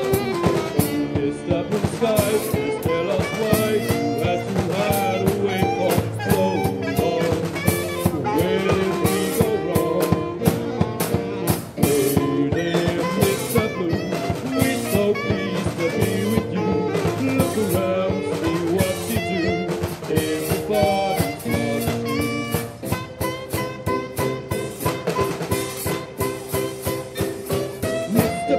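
Small live band playing an instrumental passage: saxophone with keyboard over a steady drum-kit beat.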